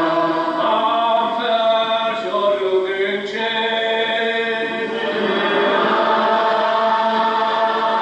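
Unaccompanied Gaelic psalm singing: a congregation singing together in slow, long-held notes, led by a precentor.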